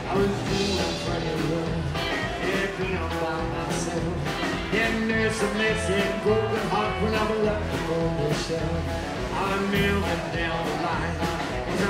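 Live rockabilly band playing to a steady drum beat, with slapped upright double bass, electric and acoustic guitars, and a man singing.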